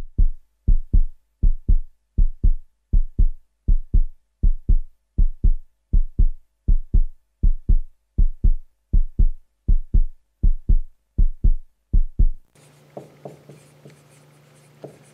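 Heartbeat sound effect: loud, evenly paired lub-dub thumps at about 80 beats a minute, stopping abruptly about twelve and a half seconds in. A steady low room hum follows, with faint marker scratches on a whiteboard.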